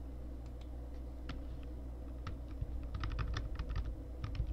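Typing on a computer keyboard: a few scattered keystrokes at first, then quicker runs of key clicks from about two seconds in.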